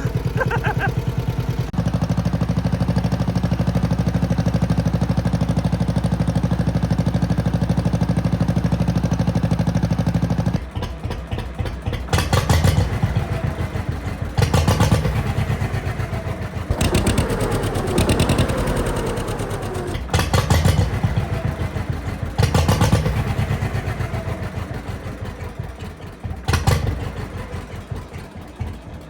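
Tractor engine running steadily for about ten seconds. It then drops back and is revved in short bursts every two to three seconds, with the pitch rising and falling.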